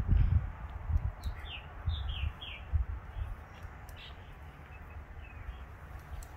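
A small bird chirping: a quick run of short falling chirps, then a few scattered ones. Low thuds in the first second are the loudest sound.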